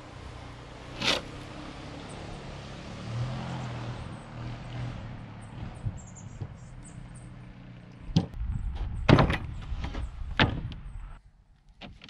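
Plastic bucket and a heavy coil of cable being handled on a plywood sawhorse table: a single knock about a second in, then a cluster of loud knocks and thumps late on as the coil is set onto the bucket, over a steady low background noise that stops shortly before the end.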